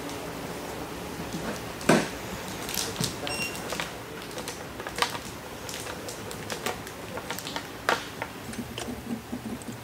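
Window tint film being pressed and smoothed over a wet windshield with a hand tool: irregular crinkles and taps of the plastic film with a short squeak, the loudest a sharp crackle about two seconds in.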